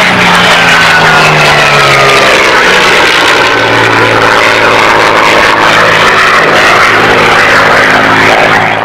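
Single-engine piston propeller aircraft flying past low, its loud, steady engine drone dropping in pitch about two to three seconds in as it passes, with a higher whine falling away at the same time.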